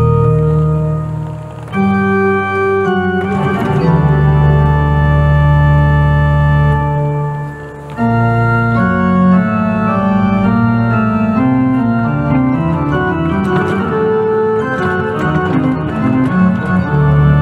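Organ playing sustained full chords over held pedal bass notes. The music breaks off briefly twice, then a quicker line of short notes moves through the middle and lower range before a low held bass note comes back near the end.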